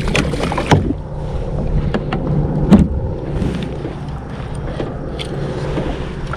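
Wind on the microphone and small waves lapping at a plastic kayak, with a sharp knock under a second in and a louder knock near three seconds in.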